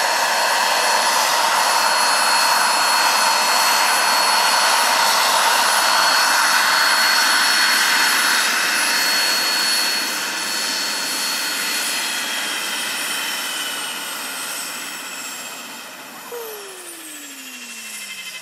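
Gas turbine of a large RC Hughes 500E scale model helicopter, with its rotor, running with a steady high whine while it flies low and lands. After touchdown about ten seconds in it gets quieter. Over the last few seconds its tones slide down in pitch and fade as the turbine and rotor wind down.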